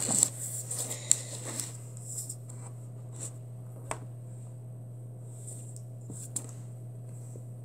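Quiet room with a steady low hum, a little rustle of hands handling things on a table in the first two seconds, then a few faint single clicks, like fingertips tapping tablet screens.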